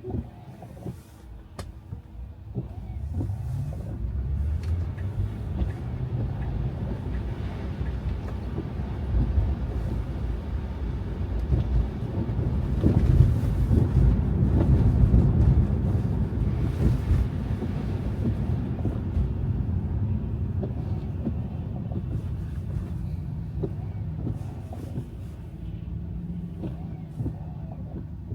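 Car driving on snowy roads: a low rumble of tyres and engine that builds a few seconds in, is loudest around the middle and then eases off, with faint scattered clicks.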